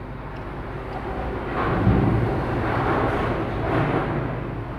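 A passing road vehicle: a rush of noise with a low rumble that swells to a peak about two seconds in and slowly fades.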